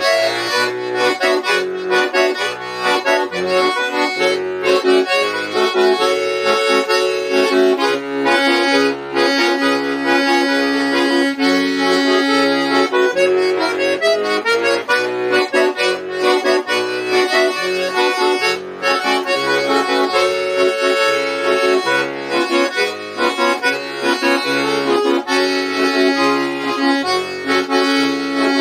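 Accordion playing a slow, soulful song: a sustained melody and chords in the right hand over steady, evenly spaced bass notes and chords in the left hand.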